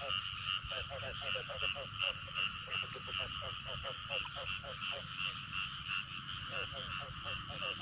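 Rice-paddy frogs calling: a rapid run of short croaks, about four a second, which pauses briefly after about five seconds and then resumes. Beneath them runs a steady, high-pitched chorus from the flooded field.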